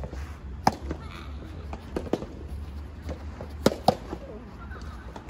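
Soft tennis rally: the soft rubber ball popping off the rackets and the court in a string of sharp knocks, about a second apart, with wind rumbling on the microphone.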